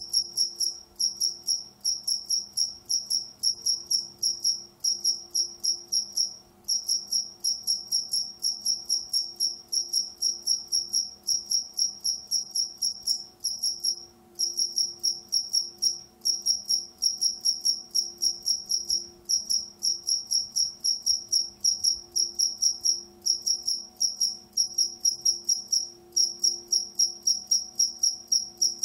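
A single cricket chirping: a high chirp repeated evenly, with brief breaks about six and fourteen seconds in.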